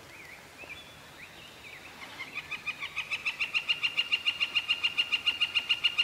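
A bird calling a long, rapid run of even, piping notes, about seven a second, starting about two seconds in and growing louder. Before it comes soft warbling birdsong.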